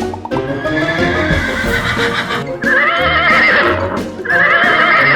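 Horse whinnying: a fainter neigh, then two loud, long, quavering neighs about a second and a half apart. Background music plays underneath.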